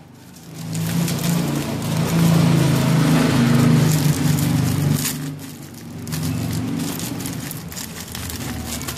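Thin clear plastic wrap crinkling and crackling as fingers pick at it and peel it off a small package. Under it, a loud low rumble swells from about a second in and fades around five seconds, like a passing vehicle.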